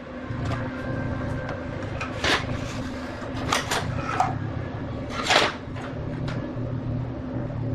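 A machine hums steadily while a series of clattering knocks and scrapes sound over it. The loudest come about two, three and a half, and five seconds in.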